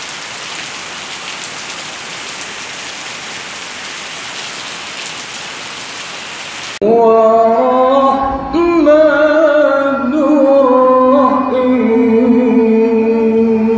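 Heavy rain falling steadily on pavement and plants, an even hiss. About seven seconds in it cuts off abruptly and louder music with a sung vocal melody of long held notes takes over.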